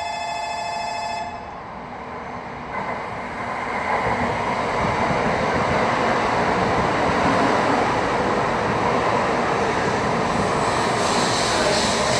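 A steady ringing tone that stops about a second in, then an N700A Shinkansen train running in along the platform, its rushing rail and air noise swelling from about three seconds in and holding loud and steady.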